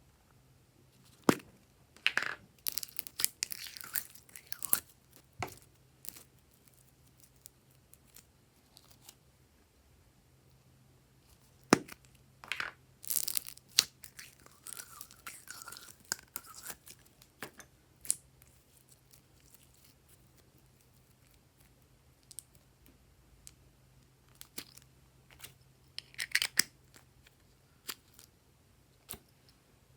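Hands squishing, stretching and folding glossy slime: sticky crackling and sharp clicking pops of trapped air, in a few spells with quieter gaps between.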